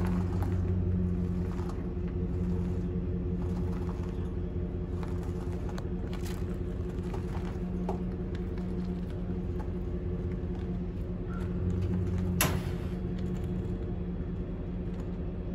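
Steady low hum of a running motor, with a sharp click about twelve seconds in.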